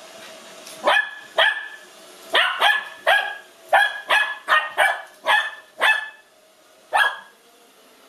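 Lhasa Apso puppy barking at a moving robot vacuum: a run of about a dozen short, sharp, high-pitched barks, coming in quick bursts with a last single bark near the end.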